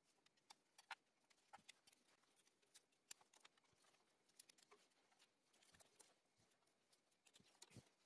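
Near silence, with a few faint, scattered clicks.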